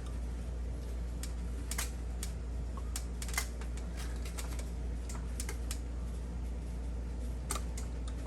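Irregular light metallic clicks and taps as brake pad hardware (the pad clips and pads) is fitted by hand into the caliper bracket, over a steady low hum.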